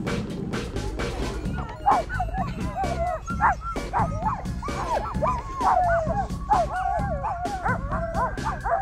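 A pack of Siberian huskies yipping, whining and howling in many overlapping high calls, starting about two seconds in, over background music with a steady beat.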